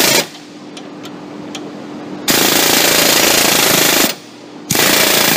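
Pneumatic air hammer rattling against the spider of a rust-seized steering-shaft U-joint in bursts. One burst ends just after the start, a longer one of nearly two seconds comes about two seconds in, and another starts near the end, working the joint loose.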